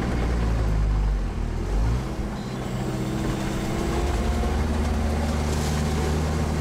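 Sherp all-terrain vehicle's diesel engine running steadily under load, heard from inside the cab as it climbs a grassy stream bank, its pitch rising slightly after about two seconds.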